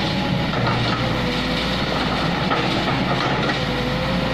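Kobelco crawler excavator working: its diesel engine running steadily, with mechanical clatter and rattling from the machine.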